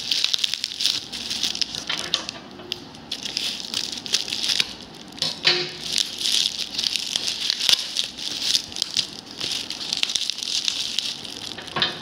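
Plastic bubble wrap crinkling and rustling as hands unwrap it: a dense crackle of small clicks with a couple of brief lulls.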